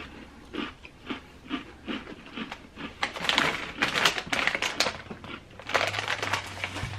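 Crunchy chewing of Oreo cookies, about three crunches a second, then a plastic cookie package crinkling loudly for about two seconds as it is handled. A low steady hum comes in near the end.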